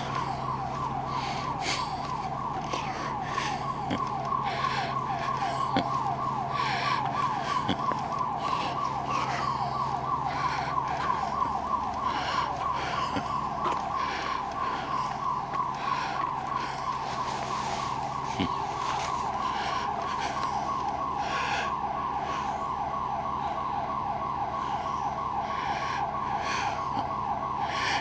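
Building security alarm siren sounding continuously, a fast warbling tone that sweeps up and down in pitch several times a second, heard over the steady low hum of a patrol car.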